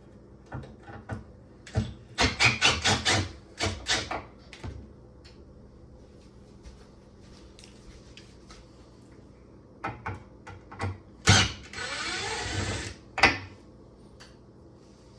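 Screws on the dishwasher's top mounting brackets being worked loose from under the counter: runs of quick, ratchet-like tool clicks, and a short whirr about twelve seconds in.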